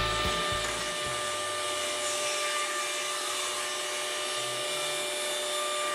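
Table saw running steadily as it rips a thin mahogany strip along the fence, a constant whine over the noise of the cut.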